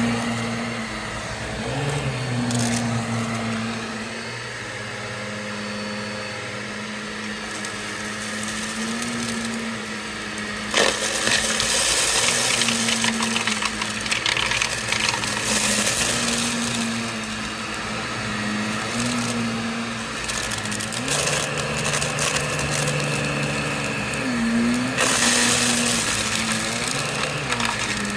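Vacuum cleaner motor running steadily, its pitch dipping briefly now and then, with stretches of loud crunchy debris being sucked up about eleven seconds in and again near the end.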